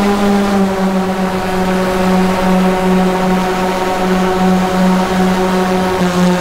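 Electric paramotor's propellers and motors running in flight, a steady hum of stacked tones with a slow pulsing wobble. The pitch eases down slightly, then shifts a little near the end.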